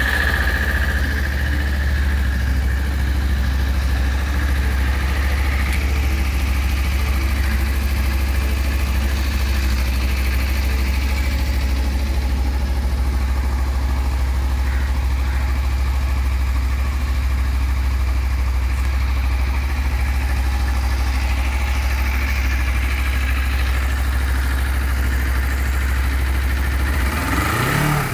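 Suzuki Inazuma GW250's 248 cc parallel-twin engine idling steadily through its twin exhausts just after a start. Near the end it gives a short rev that rises in pitch.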